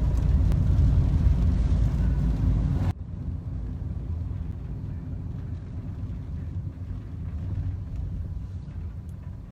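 Car road and engine noise from inside a moving car: a steady low rumble that drops abruptly about three seconds in to a quieter, duller rumble, where the recording breaks off and resumes.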